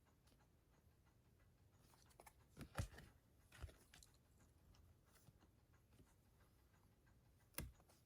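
Faint handling of glossy art cards: a few soft rustles and taps a couple of seconds in and one sharper tap near the end, otherwise near silence.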